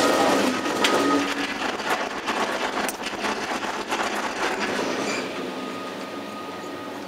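Gondola lift cabin running out of the station, heard from inside the cabin: a loud clatter of rollers and machinery with a steady whine for about the first second and a half. The noise then fades gradually as the cabin rides out along the cable, with occasional clicks.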